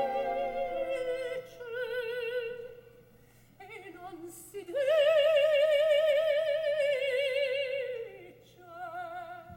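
Solo operatic soprano voice singing with a wide vibrato in short, broken phrases. In the middle she holds one long high note, which slides down at its end.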